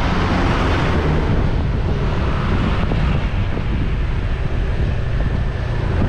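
Wind buffeting the microphone of an action camera moving through street traffic, over a steady rumble of road and vehicle noise.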